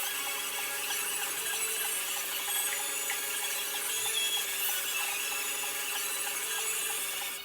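Welding arc crackling steadily as a bracket is welded onto a steel motorcycle frame, cutting off suddenly near the end.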